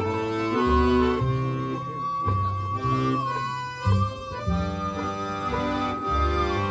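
A musical saw (handsaw) bowed to sing one long, held high note that drifts slowly upward, over a small string band: accordion chords, upright bass, banjo and acoustic guitar.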